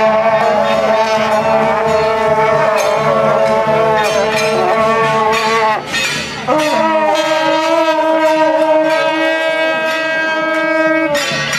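A troupe of shaojiao, long processional horns with flared bells, sounding together in two long held blasts of several pitches at once, with a short break about six seconds in.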